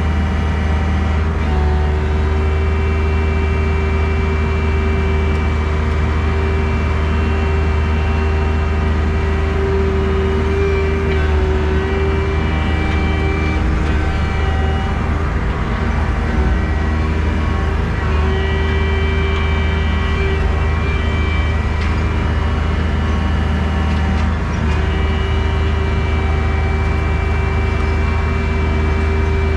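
Diesel engine of a compact excavator running steadily under working load, with a hydraulic whine that fades in and out several times.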